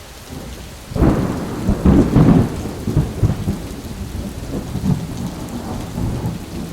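Rain falling, with a rumble of thunder that breaks in suddenly about a second in, is loudest about two seconds in, then eases into steady rain.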